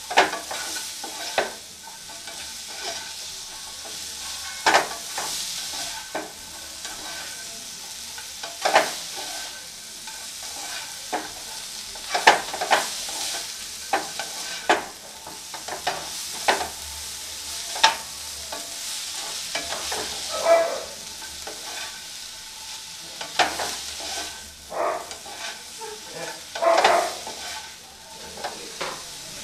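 Shredded cabbage, onion, capsicum and carrot sizzling in butter in a non-stick pan while a spatula stirs and tosses them. The spatula scrapes and knocks against the pan every second or few.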